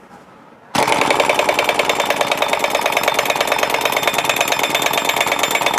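Pneumatic impact wrench hammering the CVT front pulley (variator) nut tight on a Honda Vario 125 scooter. It starts suddenly under a second in and keeps up a loud, rapid rattle of blows for about five seconds.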